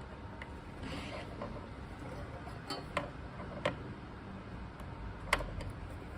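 A few sharp, separate clicks and light handling noise from cables and connectors being plugged in, the last click the loudest, over quiet room tone.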